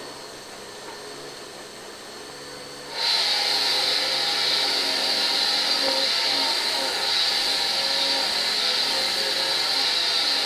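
A small electric kitchen blender switched on about three seconds in and then running steadily with a loud high whine. Before it starts there is only a quieter steady hiss.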